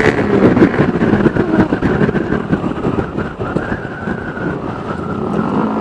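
The single-cylinder engine of a Honda CB150R running through a 3Tech Spartan GP aftermarket racing exhaust in street mode, with the bike under way. The exhaust is loud at first, then eases off as the throttle is backed off.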